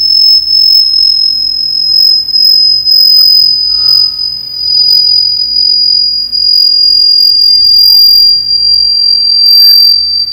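A loud, single high-pitched electronic tone held steadily, its pitch sinking very slightly and slowly.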